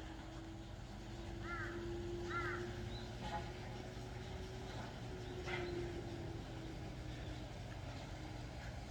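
Rural outdoor background: a steady low hum, with two short calls from a bird about one and a half and two and a half seconds in.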